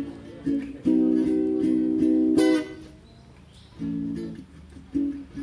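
Background music: a strummed plucked-string instrument like a ukulele or guitar playing short chords, with a quieter gap in the middle.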